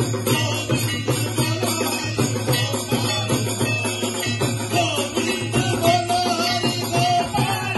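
A group sings a Hindu aarti hymn, led by one voice through a PA microphone, with rhythmic hand-clapping and percussion keeping the beat.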